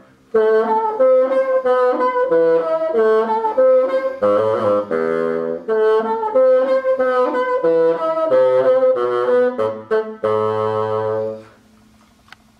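1961 Fox Model II wood bassoon, overhauled by Fox and fitted with a new Fox C2 bocal, playing a melodic phrase of separate notes. It ends on a long held low note that stops near the end.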